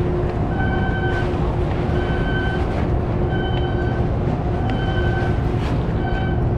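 Dockside machinery running with a steady low rumble and hum, under an electronic warning beeper that sounds for about half a second roughly every second.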